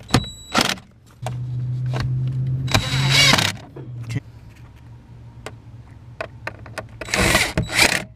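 Clicks, knocks and rustling as a car's heater blower fan is refitted and plugged in under the dashboard. A steady low hum starts about a second in and lasts about three seconds.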